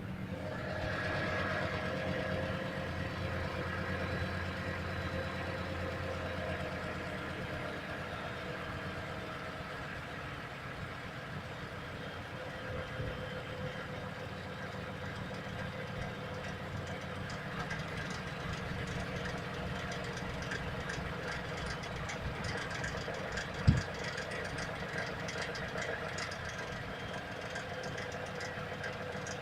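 Car engine idling with a steady knock from the engine, which the owner suspects is the hydraulic lifters. One sharp, louder thump late on.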